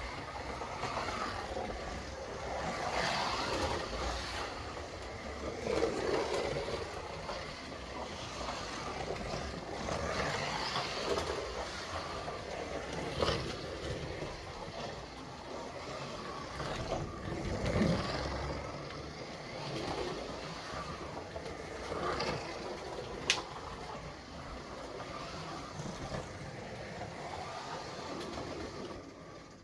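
Slot cars lapping a track, their electric motors whirring in swells that rise and fade every few seconds as they pass, with a sharp click about two-thirds of the way through.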